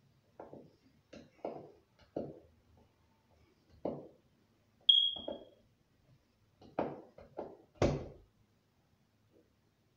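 Screwdriver working at the screw of an old electrical wall box: a series of short scraping and knocking strokes, with one sharp metallic ping about five seconds in.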